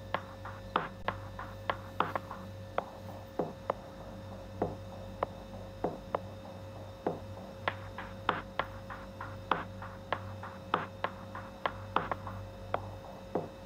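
Cartoon drop sound effects: a string of short plops, each falling quickly in pitch, about two to three a second at uneven spacing, over a faint steady hum.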